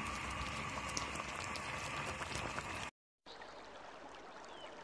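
Misua noodle soup boiling in a wok: a steady bubbling hiss with many small pops, which cuts off abruptly about three seconds in and gives way to a fainter hiss.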